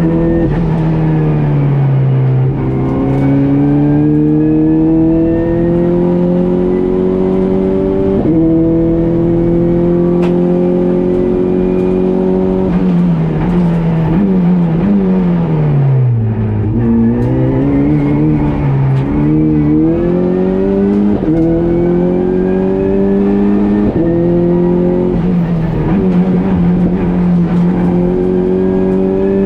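Renault Clio 4 RS Cup race car's four-cylinder turbo engine, heard from inside the cabin, pulling hard under full throttle, its pitch climbing and dropping at each upshift. About halfway through the revs fall away steeply as the car slows for a bend, then it accelerates again through several quick gear changes.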